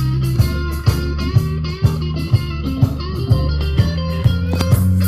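Blues music with electric guitar over a steady bass line and drum beat.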